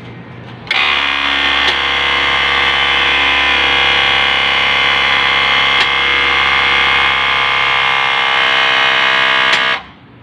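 Push-button electric-hydraulic cab-tilt pump of an Isuzu tractor head running as the cab is raised: a loud, steady mechanical whine that starts abruptly and cuts off about nine seconds later.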